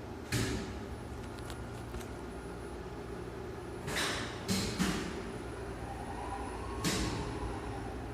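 Schindler elevator machine room: a steady electrical and machinery hum, broken by sharp clunks of relays and contactors switching, once near the start, three times in quick succession in the middle and once more near the end. From about six seconds in, a faint motor whine rises in as an elevator drive starts up.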